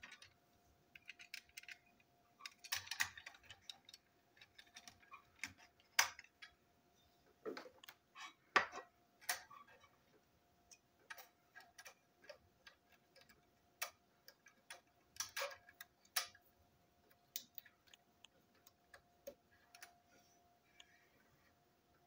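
Light, irregular clicks and knocks of small plastic and metal toy train parts being handled: the plastic coach body, its black chassis and small metal pieces tapped and set down on a table, with a few louder knocks. A faint steady hum runs underneath.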